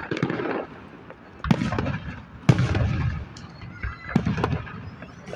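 Aerial fireworks going off: several sudden booms, about a second apart, the loudest about two and a half seconds in, each trailing off into a rumble and crackle.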